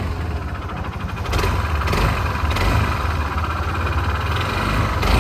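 Yamaha NMAX 160 single-cylinder four-stroke engine running with a subtle, light knock from the bottom end. The mechanic takes the knock for a worn connecting rod, though he says it could also be the camshaft bearing. The running gets a little louder about a second in.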